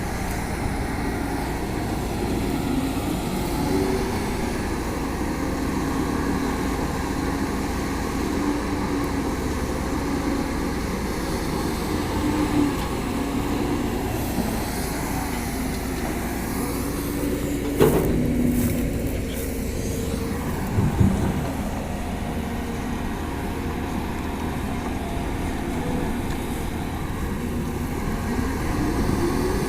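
CAT 320D hydraulic excavator's diesel engine running under load while digging, its pitch rising and falling as the hydraulics work. A sharp metallic knock comes about 18 seconds in, with a smaller thump a few seconds later.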